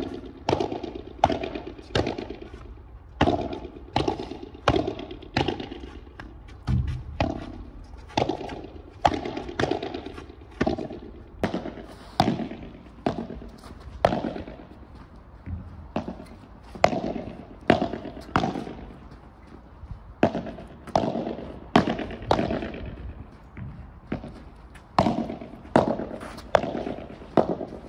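Padel ball struck back and forth with padel rackets in a rally: a long run of sharp pops, about one or two a second, each with a short ring.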